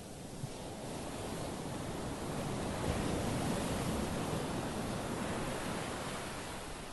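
Small sea waves breaking on a beach and washing up the shore; the surf swells to a peak about halfway through and then eases off.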